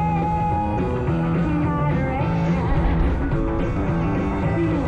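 Rock song with singing over guitar and a steady beat: the music soundtrack of the fireworks show.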